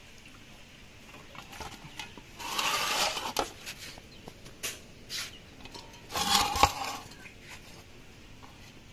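Two bursts of handling noise about three seconds apart: wet hilsa fish set down and shifted in a metal pan, with a few faint knocks.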